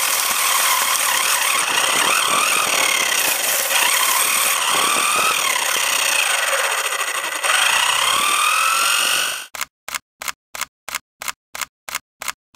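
WLtoys 144001 1/14-scale 4WD RC car's 550 brushed motor and gears whining, the pitch rising and falling with the throttle, over a rushing hiss of tyres and wind. About three-quarters of the way through it cuts off and gives way to a steady run of sharp clicks, about four a second.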